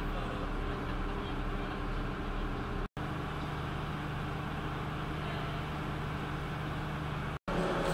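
A heavy engine idling steadily, a low even hum. The sound cuts out completely for a moment twice, about three seconds in and near the end.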